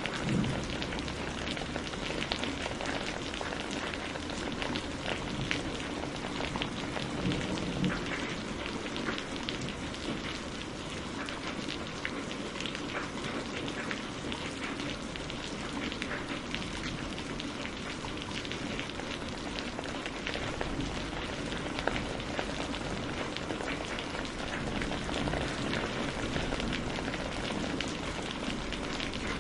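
Steady rain falling on a surface: a dense, even patter of drops.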